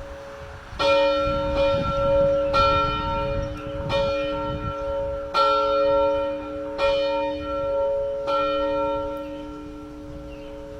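Single church bell being rung, struck about every one and a half seconds, each stroke's hum ringing on until the next.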